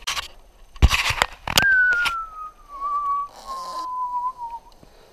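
A few knocks and rattles, then a long whistled note that slides slowly down in pitch over about three seconds, wavering slightly along the way.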